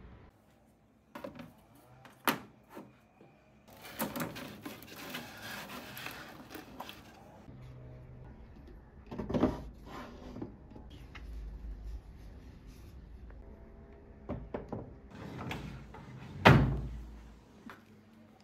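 Household objects being handled and set down: a few sharp clicks and knocks, several seconds of rustling, and one thump near the end, the loudest sound.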